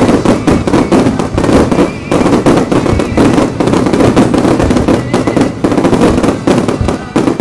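Rapid barrage of aerial firework shells bursting close by: dense overlapping booms and crackling with hardly a gap between bursts.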